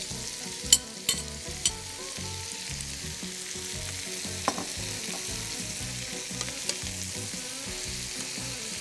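Spinach and diced vegetables sautéing in a frying pan: a steady sizzle as fresh spinach wilts in the hot oil. Over it come a few sharp clinks of utensils against the pan, three in the first two seconds and one more about halfway through, as the spinach is tipped in and stirred.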